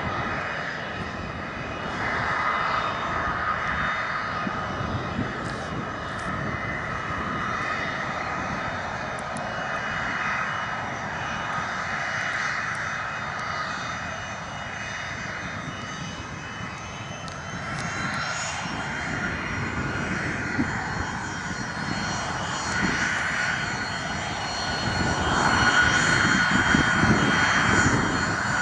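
Pilatus PC-24 business jet taxiing, its two Williams FJ44-4A turbofans whining steadily at low power with several high whine tones over a steady rush. It gets louder in the last few seconds as the jet comes near.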